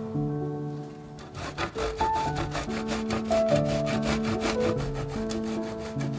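Parmesan cheese being grated on a stainless steel box grater: fast, even rasping strokes that start about a second and a half in.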